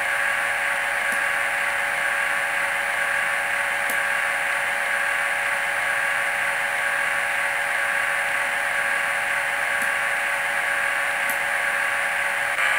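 Digitrax DCC sound decoder in a stationary N-scale KATO 115 series EMU model, playing a steady standing-train idle sound through the car's small built-in speaker. It is a hissing hum with several steady tones, with a few faint ticks.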